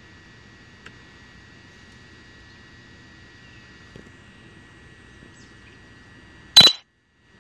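A faint steady high-pitched whine over low background noise. Near the end a sudden loud pop is followed by a brief dropout to silence.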